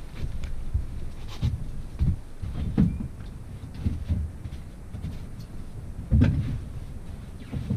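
Gusty wind buffeting the microphone, with a few short knocks and clicks, the loudest about six seconds in.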